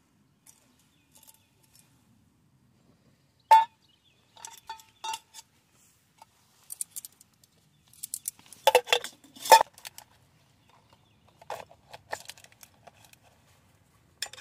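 Metal objects clinking as they are handled: scattered sharp clinks, each with a brief ring. One loud clink comes about three and a half seconds in, and the loudest cluster comes around nine seconds.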